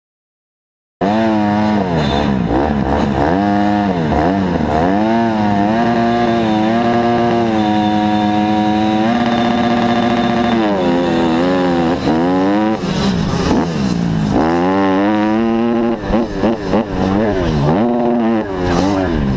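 Super mini motocross bike engine heard from its on-board camera, revving up and down. About eight seconds in it holds steady revs for a moment, then it pulls hard, rising and dropping in pitch as it accelerates and shifts along the dirt track.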